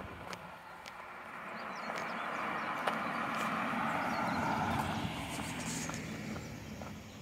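A minivan passing on the road: its tyre and engine noise swells to a peak about three to five seconds in, then fades away. Faint footsteps on pavement tick underneath.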